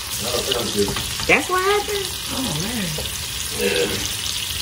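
T-bone steak searing in hot oil in a frying pan: a steady sizzle.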